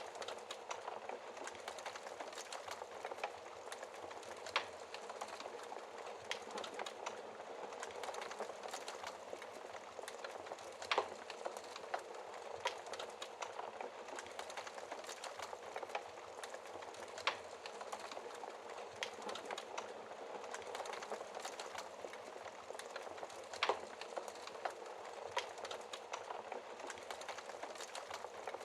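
Wood fire burning behind a glass fireplace shield: a steady hiss with frequent small crackles and a few louder, sharp pops spaced several seconds apart.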